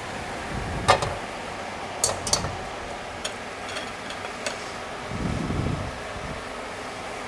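A spatula clinks against a frying pan during stir-frying, with a sharp clink about a second in, two more about two seconds in, then a few lighter taps, all over a steady background hiss. A short low rumble comes just after five seconds.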